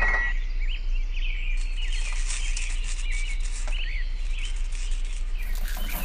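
Small birds chirping, many short high chirps throughout, over a steady low hum.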